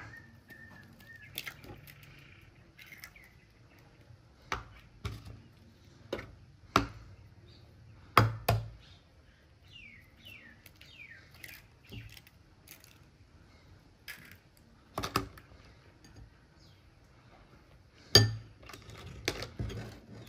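Scattered sharp taps and knocks of hen's eggs being cracked and their shells handled over a bowl and a plastic tub, with a few short high falling chirps about ten seconds in. Near the end a metal spoon clinks and scrapes in a ceramic bowl as the beaten egg is stirred.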